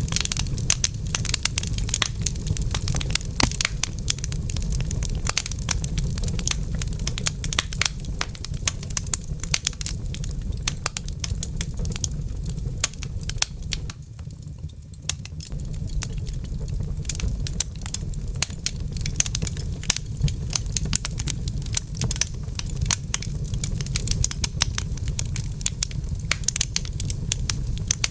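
Fire in a fireplace crackling and popping in dense, irregular snaps over a steady low rumble. The crackles thin out briefly about halfway through.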